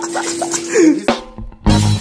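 Music. A held tone with quick even pulses runs until about a second in, then a passage with bass guitar and drums starts.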